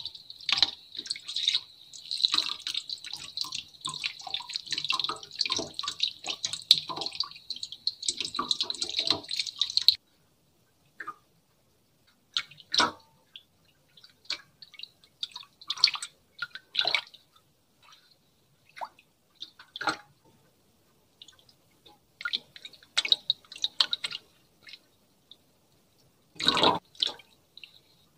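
Close-up simulated hair-washing ASMR sound effects: dense wet crackling for about the first ten seconds, which cuts off suddenly. Scattered single drips and clicks follow, with a short louder splash near the end.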